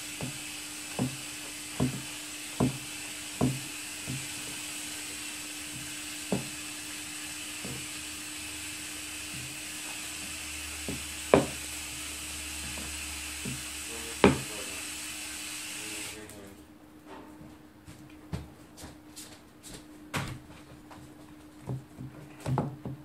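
A stirring utensil knocking and scraping against a plastic bowl as slime is mixed, with a sharp knock about once a second and a few louder ones. A steady background hiss cuts off suddenly about two-thirds of the way through, leaving softer, scattered knocks.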